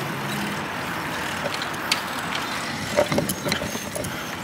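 Wind and tyre noise on a handheld phone microphone while riding a bicycle on asphalt, with a cluster of clicks and knocks around three seconds in as the phone is turned in the hand.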